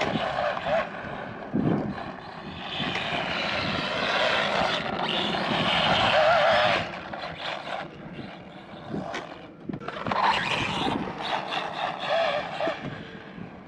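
Arrma Mojave Grom BLX mini RC truck driving, its brushless motor whining with a pitch that rises and falls as it speeds up and slows. The whine is loudest about three to seven seconds in.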